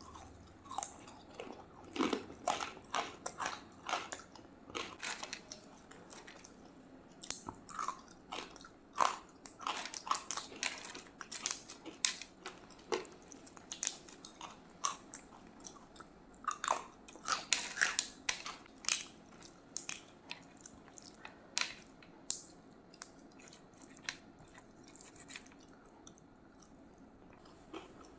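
A person eating rice and curry: chewing and lip-smacking, heard as many short, irregular wet clicks, with a quieter stretch near the end.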